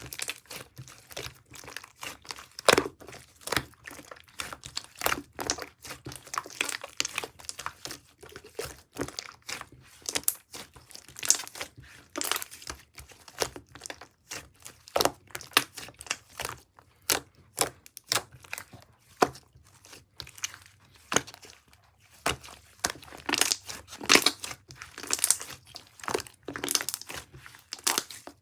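Translucent slime being squeezed, stretched and pressed by hand, making a steady run of irregular sticky clicks and pops.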